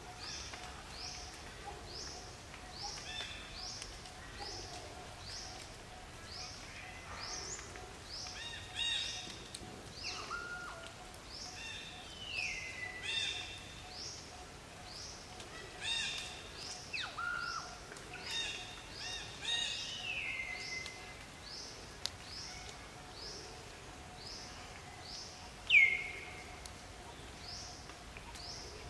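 Several birds calling: one repeats a short, high, falling note about twice a second throughout, while others call in clusters of notes. A few louder calls drop steeply in pitch and then hold, the loudest near the end. A faint steady hum runs underneath.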